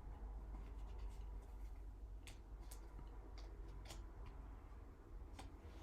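Faint rustling and a few light clicks of trading cards being slid into plastic card sleeves, over a low steady hum.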